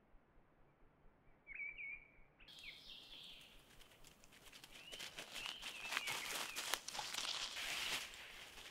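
A few bird chirps. Then, from about halfway, a dog's paws rustle and crunch through dry fallen leaves as it runs up, with birds chirping overhead.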